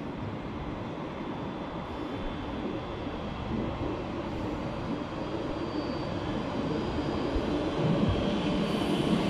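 Régio2N double-deck electric multiple unit approaching and running past: a steady rush of traction motors and wheels on rail that grows louder as it nears, with a faint high whine midway.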